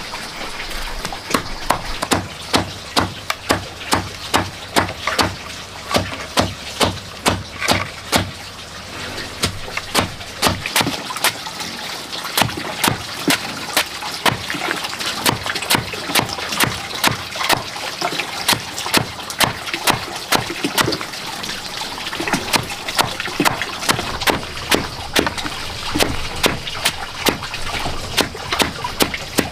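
Large cleaver chopping moist slices of banana stem on a wooden board, in a steady rhythm of wet, crunchy chops about two a second.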